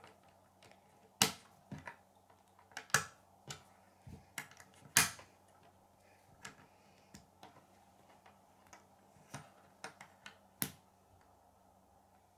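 K'nex plastic rods and connectors clicking as they are pushed together and handled on a wooden tabletop: an irregular series of sharp clicks, with several louder snaps among quieter ones.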